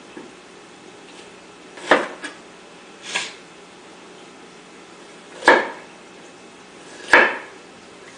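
Five sharp, irregularly spaced knocks of kitchen utensils and cookware against hard surfaces, a couple with a short scraping tail.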